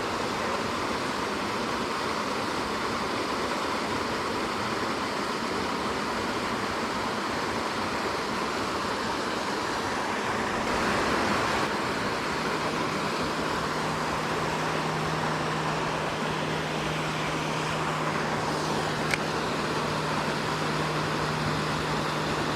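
Steady rush of a small waterfall pouring into a creek pool.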